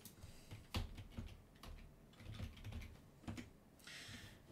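Computer keyboard typing: about ten faint, irregularly spaced key clicks, with a short hiss near the end.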